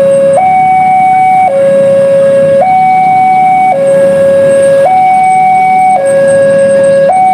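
Railway level-crossing warning alarm sounding a loud two-tone high-low signal, each tone held about a second, repeating steadily: the warning that a train is approaching and the barrier is down.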